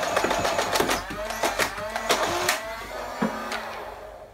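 Nerf Elite Hyperfire's motor-driven canted flywheels spinning while the blaster fires foam darts on full auto from a 25-dart drum. The steady firing ends about a second in as the drum runs empty. Then the flywheel whine comes and goes in short falling pulls with scattered clicks, fading away.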